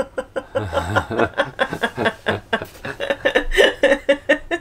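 People chuckling and laughing in a string of short laughs.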